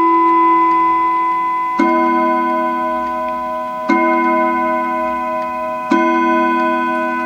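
Franz Hermle & Sons three-train clock movement sounding on its gongs: the last note of the chime tune, then the hour being struck with slow blows about two seconds apart, each left ringing, three strikes in all.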